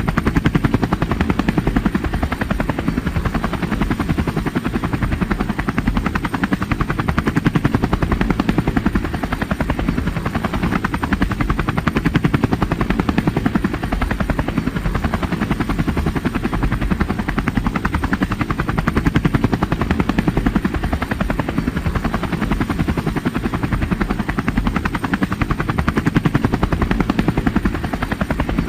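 Helicopter in flight: the rotor's fast, even beating over the engine's steady drone, with no change in pitch or loudness.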